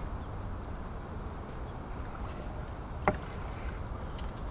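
Steady low outdoor rumble of wind and water by the dock, with a single short sharp knock about three seconds in.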